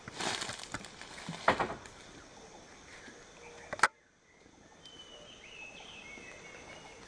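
Outdoor grassland ambience with rustling and a knock early on. A sharp click comes just before four seconds, the sound drops out briefly, then faint background returns with a few short high chirps.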